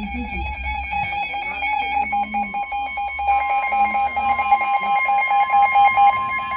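Emergency Alert System two-tone attention signal: a loud, steady alarm tone, with a second, slightly higher tone joining about two seconds in.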